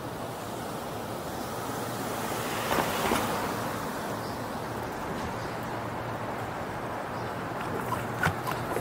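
Steady rush of wind and street traffic noise heard from a moving bicycle, swelling briefly about three seconds in, with a few short clicks near the end.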